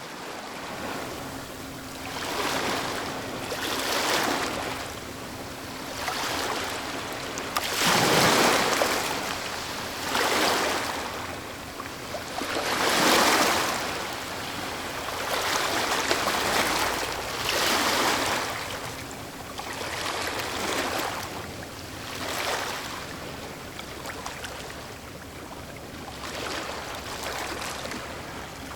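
Ocean waves breaking and washing on a shore, one surge of surf after another every two to three seconds, the biggest about 8 and 13 seconds in.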